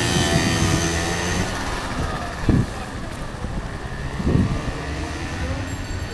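Traffic noise on a wet city street, with a passing motor scooter's engine fading away early on. Two brief low thumps come a couple of seconds apart midway.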